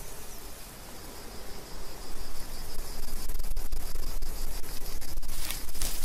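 Outdoor nature ambience with a steady high chirring of insects such as crickets. It grows louder about two seconds in, and a few sharp clicks come near the end.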